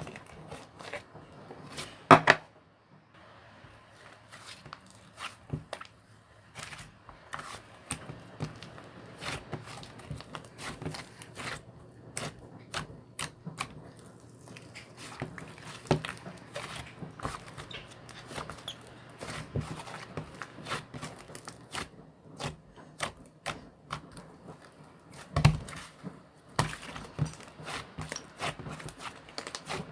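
Irregular small clicks and taps, with a louder knock about two seconds in and another near the end, over a faint steady low hum that stops about two-thirds of the way through.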